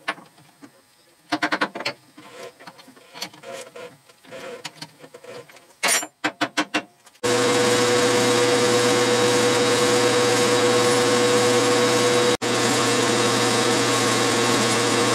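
A chuck key clicking and clanking in a three-jaw lathe chuck as an aluminium blank is tightened, with a few sharp metal clicks. Then, from about seven seconds in, a Clausing metal lathe running with a steady hum and tone while a turning tool faces the aluminium blank, shedding chips.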